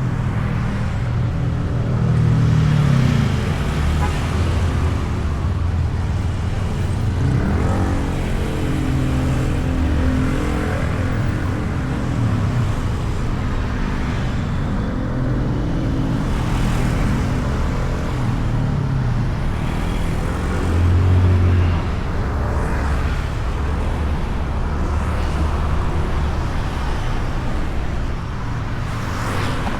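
Honda Beat scooter's single-cylinder engine running under way, its pitch rising and falling several times with the throttle, over steady road-traffic noise. A brief louder low rumble comes about two-thirds of the way through.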